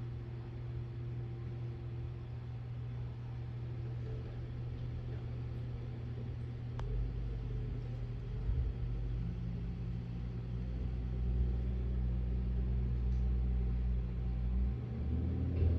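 An engine running steadily with a low hum. It gets louder and deeper from about seven seconds in.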